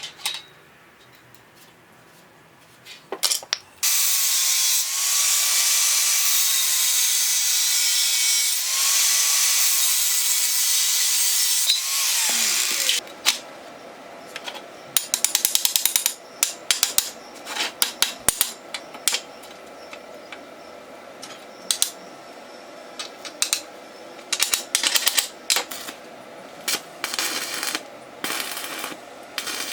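A power tool working metal for about eight seconds, a loud hiss over a steady motor tone, then spinning down with a falling pitch. After that comes a run of short metallic clicks and quick rattling passes of hand work on the metal parts.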